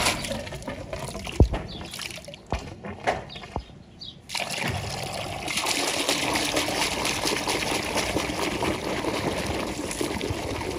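A stream of water splashing into a plastic bucket while a hand churns washing powder into it, working it into foam. A few dull knocks come in the first four seconds and the water noise drops for a moment, then the splashing and churning run on steadily from about four seconds in.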